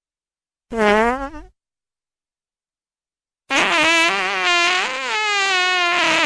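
Two fart sound effects separated by dead silence. The first is a short pitched fart under a second long, starting about a second in. The second is a long pitched fart with a wavering pitch, starting about three and a half seconds in.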